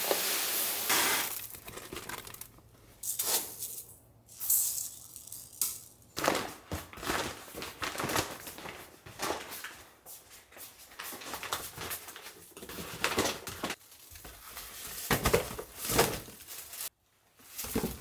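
Rice grains pouring from a bag into a drawer rice bin at the start, then a large plastic rice bag with a kraft-paper liner being folded and handled, crinkling and rustling in short irregular bursts.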